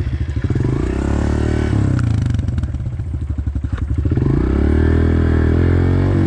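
Honda CRF125FB dirt bike's 125 cc four-stroke single engine revving up as the bike gets under way, dropping back a couple of seconds in, then revving up again and holding high revs near the end. A few sharp clicks and clatters sound over it.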